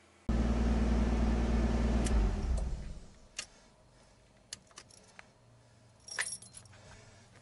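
Car engine running with a low, steady drone heard from inside the cabin, dying away about two to three seconds in. Light clicks and key jingles follow.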